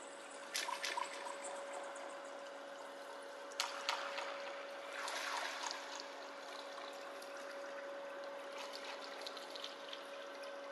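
Pool water splashing and trickling in several short bursts as a long-handled skimmer net is dipped and swept through it, over a steady low hum.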